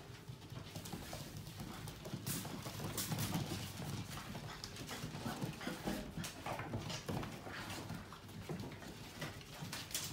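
Welsh springer spaniel puppies' claws clicking and pattering irregularly on a hard floor as they scamper about.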